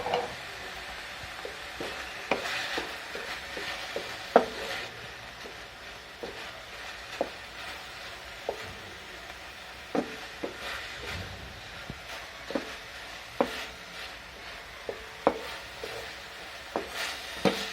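Boneless chicken pieces frying with garlic and ginger paste, sizzling steadily in the pan while they are stirred, with a utensil knocking against the pan every second or few.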